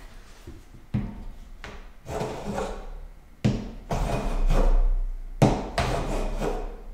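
No. 4½ smoothing plane taking strokes along a wooden board, cutting shavings: each stroke starts with a sharp knock and runs on as a rasping hiss for about a second, four or so strokes in all.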